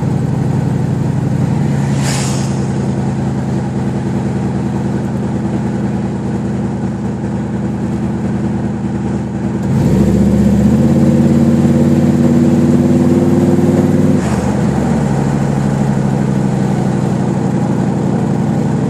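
Car engine and road noise heard inside the moving car. About ten seconds in the engine gets louder and its pitch climbs slowly as the car accelerates, then it drops back about four seconds later.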